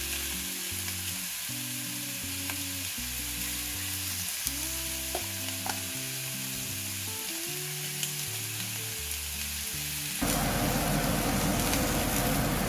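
Beef steaks sizzling in a hot cast-iron ridged grill pan: a steady frying hiss. The sizzle gets louder about ten seconds in.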